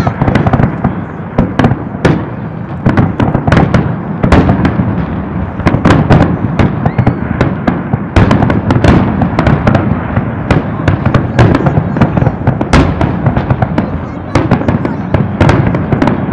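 Aerial firework shells bursting in quick succession, sharp bangs coming every second or so over a continuous low rumble and crackle from the barrage.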